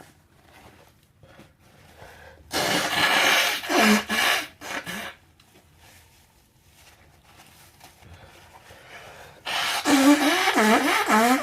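A person blowing their nose, two long blows of about two and a half seconds each. The first comes a few seconds in, the second starts near the end, with a wavering, fluttering tone through it.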